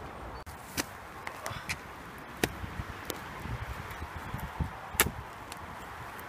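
Small hand digging spade being driven into woodland soil, leaf litter and roots: a few sharp chopping strikes, the loudest about five seconds in.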